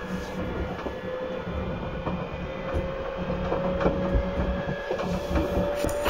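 811 series electric train running, its externally-fanned traction motors giving a steady whine that rises slowly in pitch as the train gathers speed, over a low rumble and irregular clacks of the wheels on the rail. A sharp knock comes right at the end.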